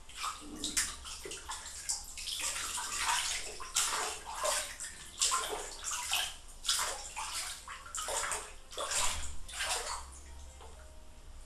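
Bathwater splashing and sloshing in a tub as a hand scoops and pours water over a wet cat, rinsing shampoo out of its fur; irregular splashes, several a second, thinning out near the end.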